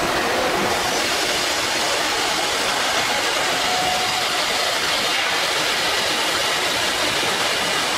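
STYLECNC S1-IV-2 four-spindle CNC router running as its gantry moves over the table: a steady mechanical noise with a faint whine.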